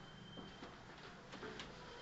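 Faint, irregular clicks and knocks over a low steady hum inside a JR 211 series electric train car.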